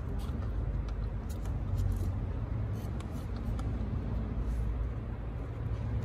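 Faint scattered metal clicks of pliers gripping and working the coolant bleed screw on a Renault 0.9 TCe engine. A steady low rumble runs underneath.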